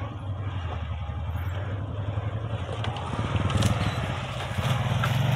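ATV (quad bike) engine running with a low steady hum. About three seconds in it grows louder as the quad approaches, and its pitch rises near the end.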